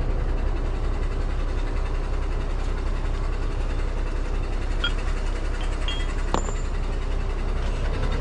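Truck engine idling steadily, with a few short metallic clicks from strap hooks and hardware about five to six and a half seconds in.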